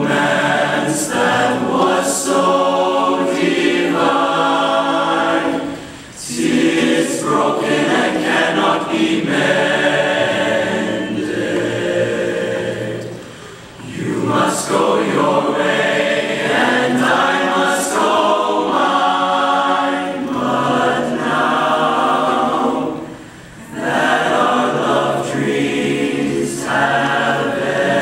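Boys' barbershop chorus singing a cappella in close harmony, in sustained chords with three brief breaks for breath.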